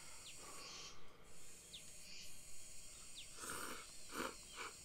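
A person slurping Cup Noodle instant noodles: a few short slurps in quick succession about two-thirds of the way in. Behind them a steady high hiss of cicadas singing.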